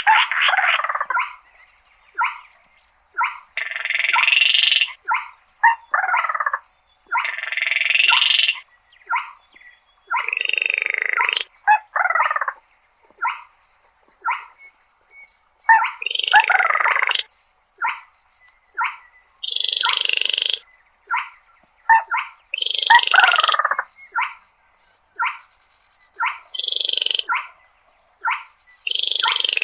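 Baillon's crake calling: a fast, dry rattle at the start, then a series of short frog-like notes and buzzy calls about a second long, several of them falling in pitch.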